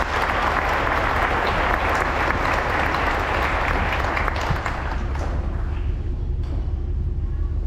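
Audience clapping, dying away about five seconds in and leaving a low steady rumble.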